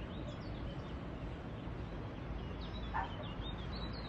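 Small birds chirping over a steady low outdoor rumble, with one louder, lower call about three seconds in.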